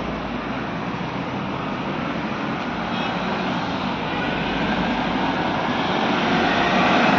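Vehicle engines running in stalled traffic, with a diesel bus idling close by: a steady low hum and rumble that grows slowly louder.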